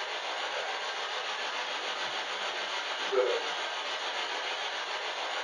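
SB7 spirit box sweeping through radio stations: a steady hiss of radio static, with one brief snatch of sound about three seconds in.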